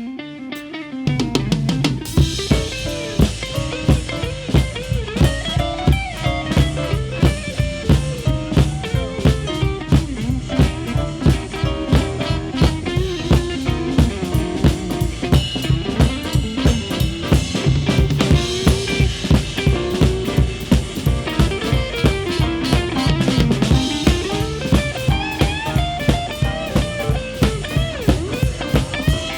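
Live blues band playing an instrumental stretch, the drum kit's snare and bass drum keeping a steady beat under the other instruments. The band drops out briefly at the start, then comes back in full.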